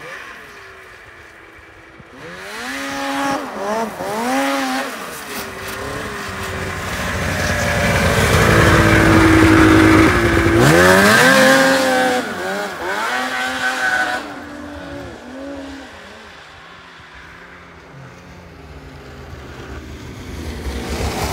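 2002 Ski-Doo MXZ 800 snowmobile's two-stroke twin engine revving up and down repeatedly. It is loudest in the middle, when the sled is right by the microphone, dies down after about fourteen seconds and rises again near the end.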